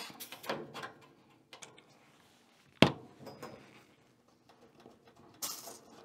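Light clicks of brass fittings being handled, one sharp click about halfway, then a brief hiss near the end: wireless refrigerant probes coming off the air-conditioner's Schrader service ports, letting out a tiny puff of refrigerant.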